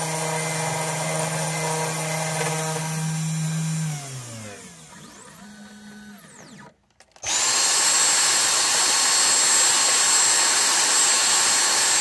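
A 3018 CNC router's spindle motor running steadily while milling out a copper-clad circuit board, then spinning down about four seconds in as the cutout finishes. About three seconds later a vacuum cleaner starts up and runs loud and steady with a high whine.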